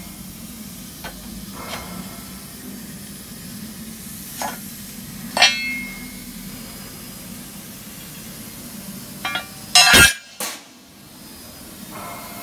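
Thick laser-cut steel plates clinking and knocking against each other as they are handled on a pile. There is a sharp ringing clink about five seconds in, and the loudest knocks come in a cluster near ten seconds, over a steady low hum.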